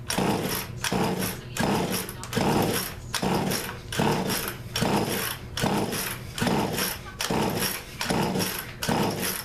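Poulan Pro chainsaw engine being turned over by hand with repeated pulls of its starter, a rhythmic stroke about every 0.8 seconds, a dozen in all.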